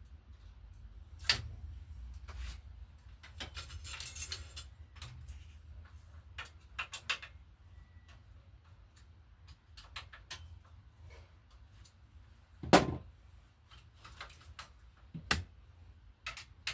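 Scattered light clicks and knocks at an irregular pace, with one sharp, louder knock about three-quarters of the way through and another shortly after.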